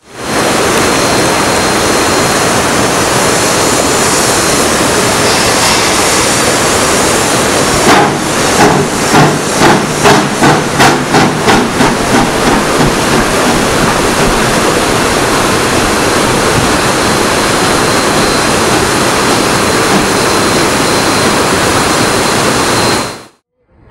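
Steam locomotive No. 40 hissing loudly and steadily with escaping steam. From about eight seconds in it gives a run of about a dozen exhaust chuffs, roughly three a second, as it works.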